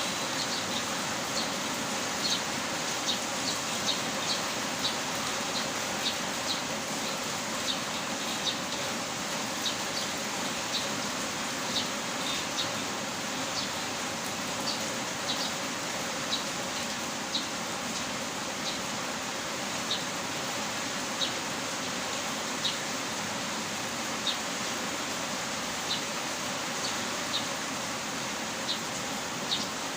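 Heavy rain falling steadily, with short high-pitched plinks over it, roughly one or two a second.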